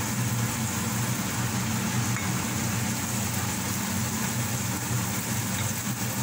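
Steady low mechanical hum with a hiss over it, unchanging throughout: kitchen background noise from a running appliance at the stove.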